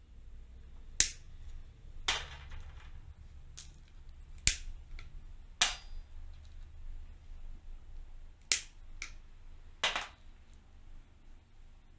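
Sharp clicks of hard pistachio shells as fresh pistachios are hulled by hand, about eight at irregular intervals, a few with a brief ring.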